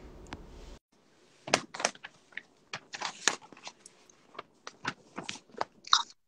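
Irregular clicks and light knocks from a phone being handled while a live video call connects, with stretches of dead silence between them and a short higher burst near the end.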